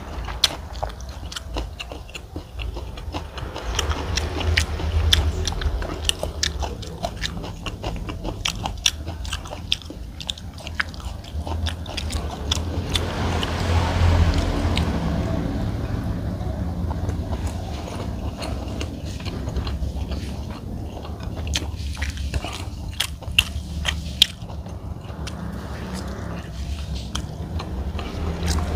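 Close-up chewing and mouth sounds of a person eating biryani rice: soft chewing with many small clicks and smacks, over a steady low hum.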